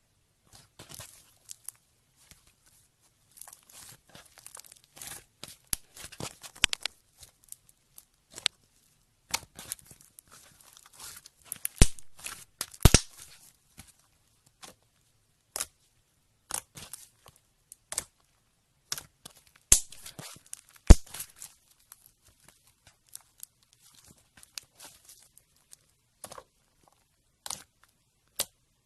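Slime being handled and squeezed, giving irregular sticky crackles and popping clicks, with a few louder snaps about twelve seconds in and again about twenty seconds in.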